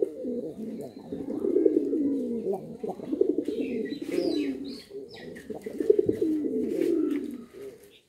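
Domestic pigeons cooing, several low coos overlapping almost without pause, with scattered light clicks and a few high chirps about four seconds in.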